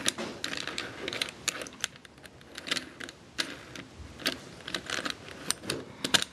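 Plastic pieces of a 3x3 puzzle cube clicking and rattling in the hands as an edge piece is worked into the partly assembled cube, with many irregular sharp clicks.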